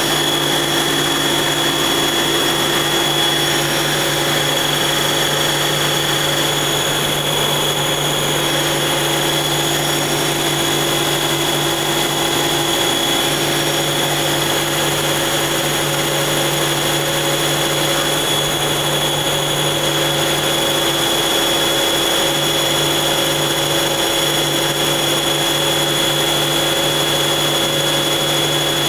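Mazak CNC turning lathe running a roughing pass with a 55-degree diamond insert: a steady machine hum with a high, steady whine over the even hiss of the spindle and coolant.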